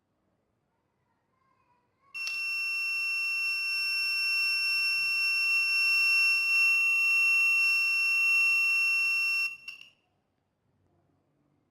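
Homemade transistor security alarm going off: a single steady, high-pitched tone that starts about two seconds in, holds for about seven seconds, then cuts off abruptly.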